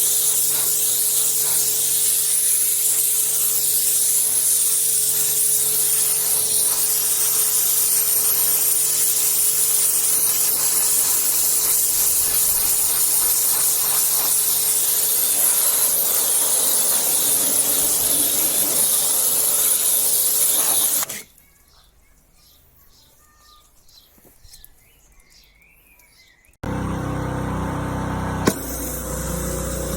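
Pressure washer spraying: a steady hiss of water jet over the constant hum of the machine. About twenty seconds in it cuts off suddenly to a near-quiet stretch with a few faint chirps. A few seconds before the end, a loud steady engine hum starts abruptly.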